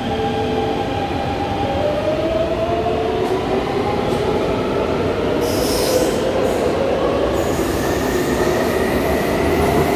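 Taipei Metro C321 steel-wheel metro train pulling out of the station: its traction motors whine in several tones that rise steadily in pitch as it gathers speed, over the rumble of the wheels on the rails. A brief high hiss comes about five to seven seconds in.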